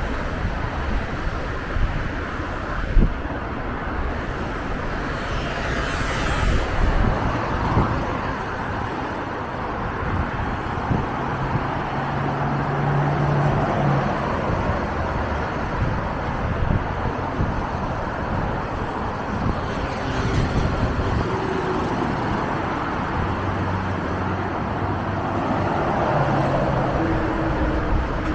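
Road traffic on a multi-lane road, vehicles passing one after another, with a Scania Castrosua Magnus E coach driving past close by about halfway through, its engine note steady as it goes. A brief sharp knock about three seconds in.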